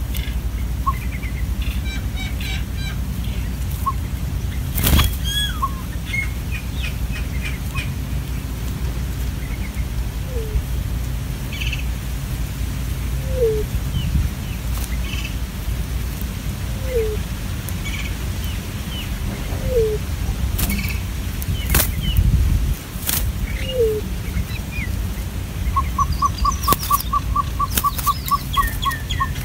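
Birds calling over a steady low rumble. A short, low, falling note repeats about every three seconds, with scattered high chirps and a few sharp clicks. Near the end comes a quick, even run of about fifteen notes.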